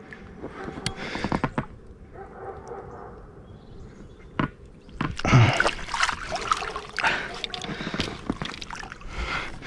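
Water splashing and sloshing as a large wels catfish thrashes at the surface beside a float tube and is grabbed by hand by the lower jaw. The splashing is light at first and becomes busier from about five seconds in, where the loudest splash comes.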